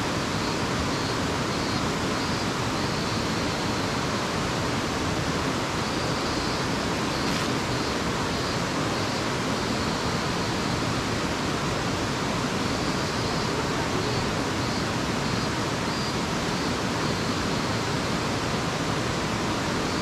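Waterfall running at very high water, a steady, even rush of falling water.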